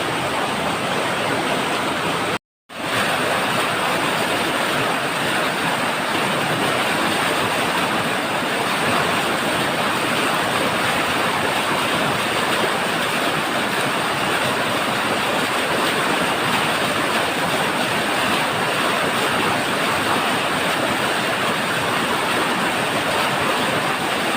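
Waterfall rushing: a loud, steady roar of falling water, cut by a brief moment of silence about two and a half seconds in.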